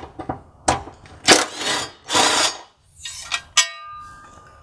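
Cordless power tool on a socket running in two short bursts as it backs out the bolts of a car's underbody brace, with a few sharp clicks before and a brief metallic ring near the end as the metal brace comes free.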